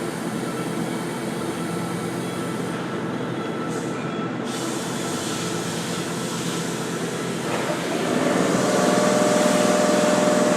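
Plasma cutter running steadily, cutting sheet-metal ductwork. It gets louder about eight seconds in, when a steady hum joins.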